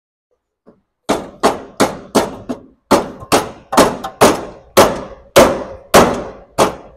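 Hammer striking the steel front-end bodywork of a BMW E30: a run of about a dozen sharp, ringing metallic blows, roughly two a second, starting about a second in. The fender is being knocked at where it has been welded on rather than bolted.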